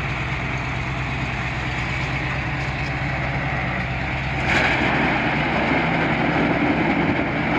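Large articulated farm tractor's diesel engine running steadily at idle, then running harder and louder about four and a half seconds in.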